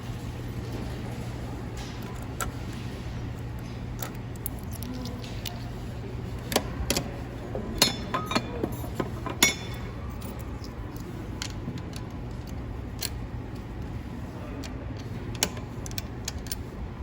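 Small metal objects clinking and jangling, with scattered sharp clicks, bunched mostly in the middle, over a steady low hum.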